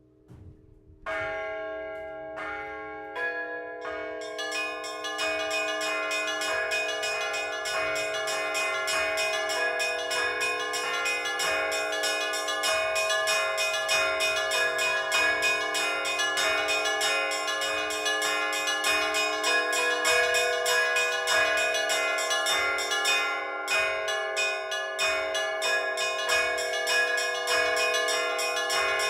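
Orthodox church bells rung by hand from the bell tower. A single bell stroke comes about a second in, more bells join over the next few seconds, and then a fast, continuous peal of many bells at different pitches rings out.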